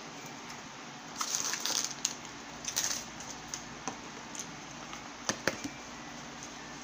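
Paper food packaging being handled: crinkly rustling bursts in the first few seconds, then two sharp snaps as a paperboard takeout box is pulled open.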